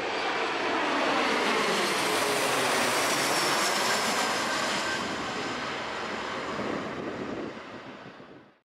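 Jet airliner's engines roaring as it passes low overhead, with a high whine above the roar. The sound eases off about seven seconds in and cuts off abruptly near the end.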